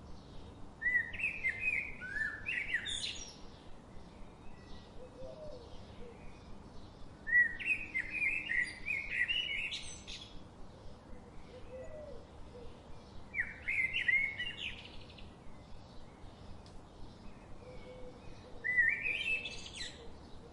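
A songbird singing four short phrases about six seconds apart, each a quick run of high notes sweeping upward in pitch, over a faint steady background hiss.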